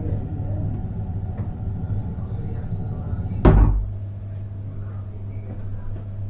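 A steady low hum with one sharp knock about halfway through.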